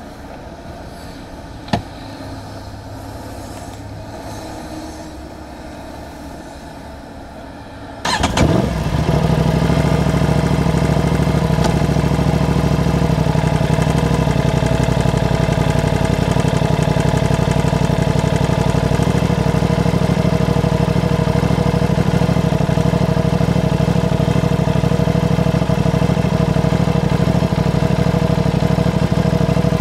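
Aprilia RS660's parallel-twin engine, breathing through a Mivv aftermarket exhaust, started about eight seconds in: it cranks briefly, catches, and then idles steadily and loudly. A single sharp click comes shortly before, about two seconds in.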